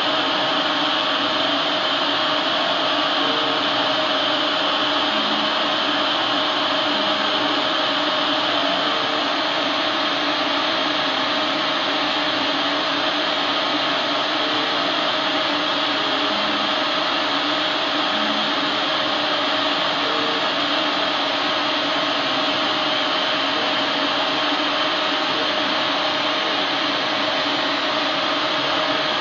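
Epilog Mini 24 CO2 laser cutter running while it cuts 3 mm wood: a steady fan-like whir from the machine, with faint short motor tones every couple of seconds as the cutting head moves.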